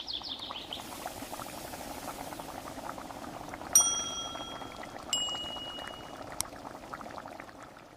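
A faint steady crackling hiss, with two ringing metallic clinks about four and five seconds in and a sharp click soon after.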